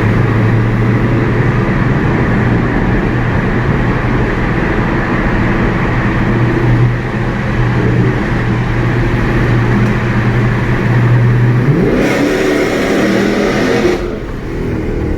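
Dodge Charger Scat Pack's 392 Hemi V8 exhaust, fitted with new 5-inch tips, running with a steady low drone. About twelve seconds in it is revved, the pitch rising and then dropping back.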